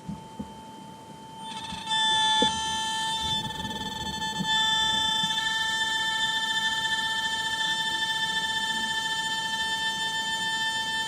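DJI Mini 3 Pro camera gimbal motor giving off a steady high-pitched whine, a fault in the gimbal. The whine comes in about two seconds in after a few light knocks and grows louder a couple of seconds later.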